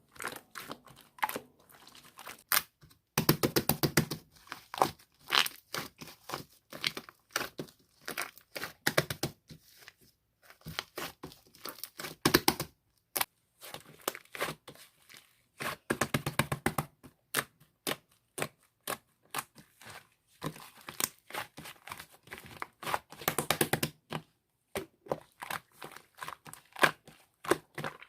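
Hands squishing, folding and stretching slime: quick sticky clicks and pops coming in irregular clusters, with short gaps between handfuls.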